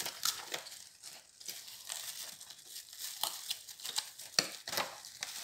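Cardboard box and plastic packaging rustling and crinkling as a floodlight is worked back into its box and the flap pushed shut, with a few sharper cardboard clicks and scrapes, the loudest a little over four seconds in.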